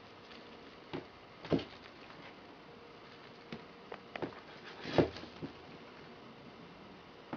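Scattered soft taps and thumps on a wooden floor from a kitten pouncing and rolling while playing with a crinkly plastic cat teaser. Two louder thumps come about a second and a half in and about five seconds in.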